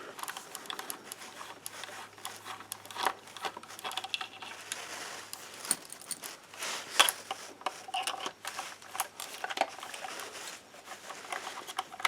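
Long Phillips screwdriver backing screws out of a plastic toy figure's back: irregular light clicks and scrapes of the tool and screws against plastic, with handling of the figure.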